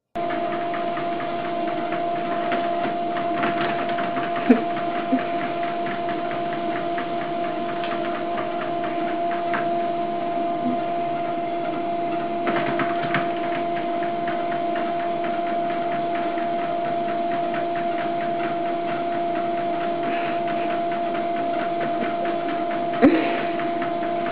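Motorised treadmill running steadily: a constant motor hum and belt noise, with a few sharp knocks, the loudest near the end.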